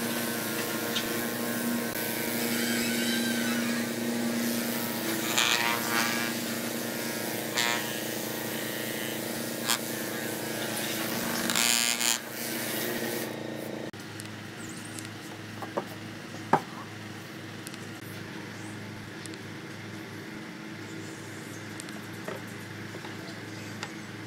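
Electric orbital sheet sander running steadily over a pine tabletop, with a few scraping surges as it is pushed across the wood. It cuts off about halfway through. After that only a low hum remains, with a few light knocks.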